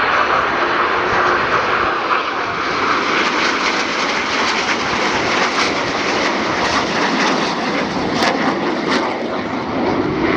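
Steady, loud engine noise from a fixed-wing display aircraft in flight.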